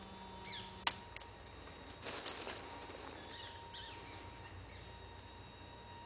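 Small birds chirping faintly in the forest, a few short calls about half a second in and again past the middle. A single sharp click just before one second in, and a brief rustling whoosh about two seconds in.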